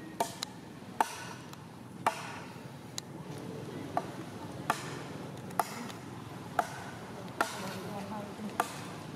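Steady chopping off to one side: a sharp knock with a short ring about once a second, keeping an even rhythm.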